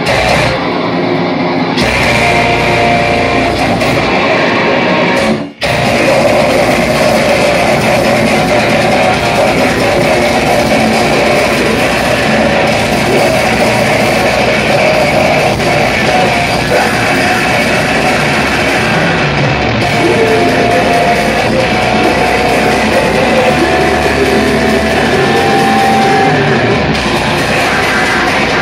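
Deathcore band playing live at full volume: heavily distorted electric guitars, bass and drum kit. The music stops dead for a moment about five seconds in, then the full band comes back in.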